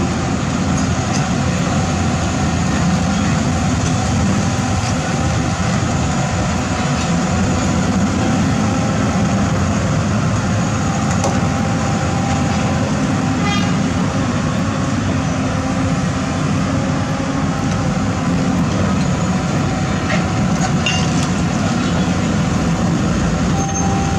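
The diesel engine of heavy construction machinery runs steadily and continuously, with faint steady whining tones over it.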